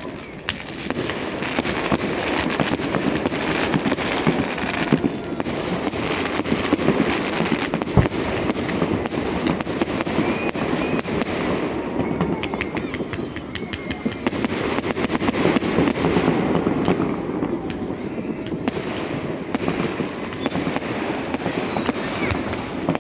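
Many fireworks going off at once: a dense, unbroken crackle of small bangs, with one sharper bang about 8 seconds in.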